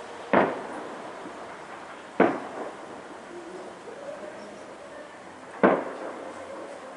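Three loud, sharp firework bangs, each with a short echoing tail: one just after the start, one about two seconds in and one near the end.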